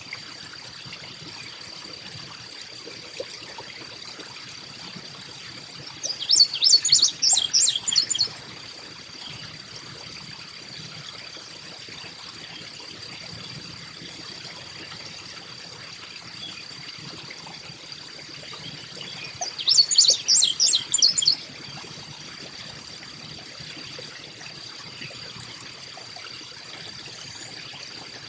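Carolina chickadee calling in two quick bursts of rapid high notes, each about two seconds long and some thirteen seconds apart, over a steady hiss and a constant thin high tone.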